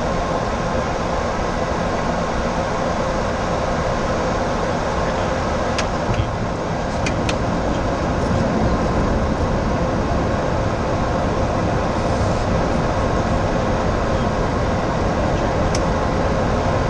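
Steady rush of airflow and engine noise inside a Boeing 737-800 flight deck on approach, with a faint steady hum under it. A few light clicks come through around the middle and near the end.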